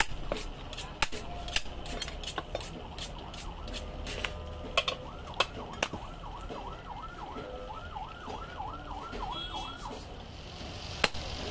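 Heavy cleaver chopping goat meat and bone on a wooden block: sharp, irregular strikes, several a second, mostly in the first half. From about five seconds in, a fast-warbling siren sounds in the background for about four seconds.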